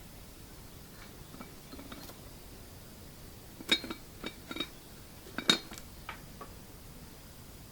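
Light clinks and knocks of small hard objects, in two clusters about two seconds apart, with a brief ring after each; the later clink is the loudest.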